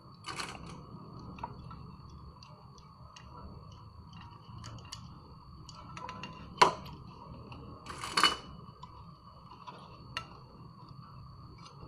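Small clicks and rustles of hands handling cables and connectors, with one sharp click about six and a half seconds in and a brief rustle about two seconds later, over a faint steady hum.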